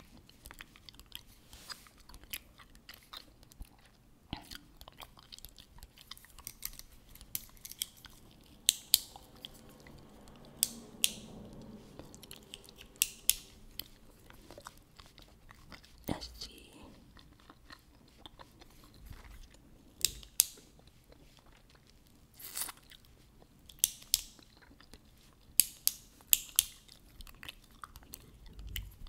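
Gum chewed close to the microphone: wet mouth smacks and crisp clicks of the gum at an irregular pace, with clusters of louder snaps in the middle and near the end.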